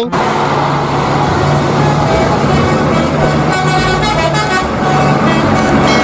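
Bus on a road: engine running amid traffic noise, with a horn tooting in several tones from about halfway through.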